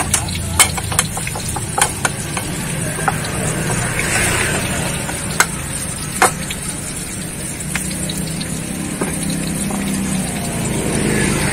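Wooden pestle grinding ketoprak peanut sauce on a plate, scraping and rubbing with scattered sharp clacks as it knocks the plate, over a steady low background hum.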